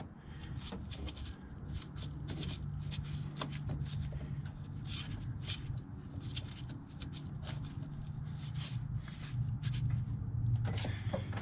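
Plastic air cleaner housing and intake duct being handled and fitted by a gloved hand: irregular light clicks and rustling, over a low steady hum.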